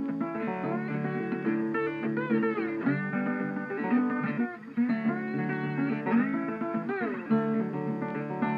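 Background music: a plucked guitar playing a melody, with a few notes bent up and down in pitch.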